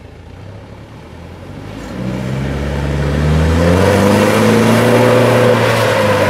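Mitsubishi Fuso light truck's diesel engine revving hard under load as it drives through deep mud, rising in pitch from about two seconds in and then held high.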